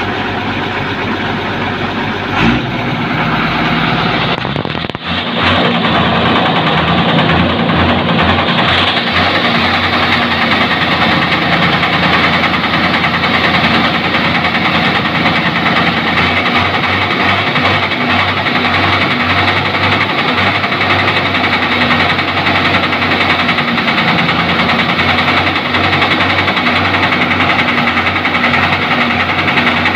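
REO 6x6 truck's engine running steadily, getting louder about five seconds in.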